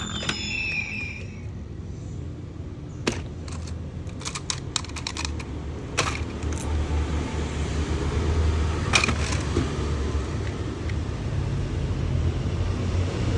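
Plastic toy packaging being handled: scattered light clicks and taps, a cluster a few seconds in and another about nine seconds in, over a low steady rumble.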